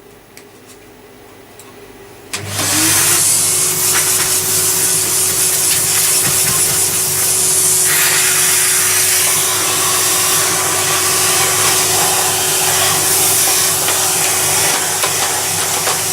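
An electric motor switches on about two and a half seconds in, its whine rising briefly as it spins up, then runs steadily and loudly with a strong rush of air.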